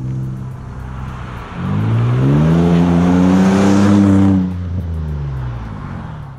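A 2007 Toyota RAV4's 2GR-FE V6, fitted with Cherry Bomb glass-pack mufflers, drives past under acceleration. The engine note climbs in pitch about a second and a half in and is loudest for a couple of seconds. It then drops in pitch and fades as the car goes by.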